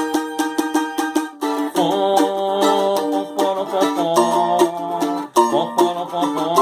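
Instrumental forró interlude between sung verses: melodic instruments playing stepwise held notes over a quick, steady percussive beat.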